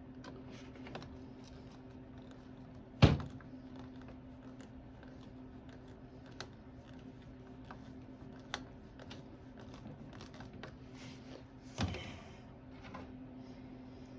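Hand tools being handled on a workbench while a screwdriver is swapped: two sharp knocks, about 3 and 12 seconds in, and scattered light clicks, over a steady low hum.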